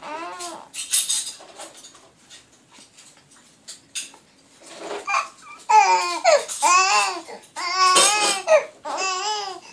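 A seven-week-old baby cooing: one short call at the start, then a run of about five drawn-out calls that rise and fall in pitch in the second half.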